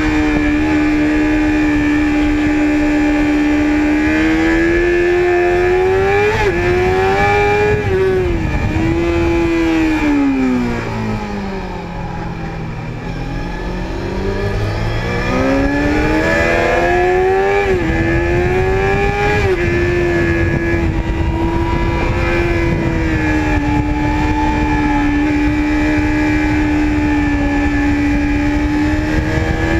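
Sport motorcycle engine at speed, with wind rushing past the bike: a steady high note that climbs through quick upshifts, falls away about ten seconds in as the bike slows and downshifts for a corner, then climbs back up through two more upshifts and settles to a steady pitch.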